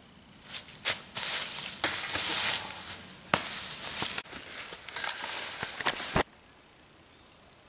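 Footsteps crunching and rustling through dry fallen leaves, with sharp crackles. The sound cuts off suddenly near the end.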